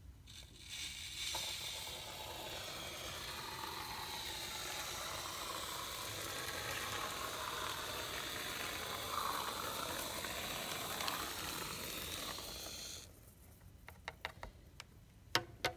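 Aerosol can of expanding spray foam sealant hissing steadily as a bead is laid along the wall's bottom edge to seal gaps. It runs for about eleven seconds and cuts off suddenly, and a few light clicks follow near the end.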